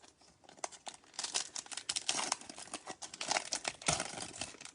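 A Bowman Chrome trading-card pack wrapper being torn open and crinkled in the hands: a dense run of crackling and rustling that starts about half a second in.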